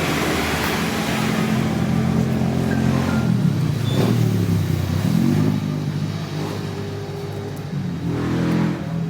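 Honda Vario Techno 110 scooter's single-cylinder engine running. Its pitch drops about four seconds in, climbs again as the throttle is opened, then settles lower, with another brief rev near the end.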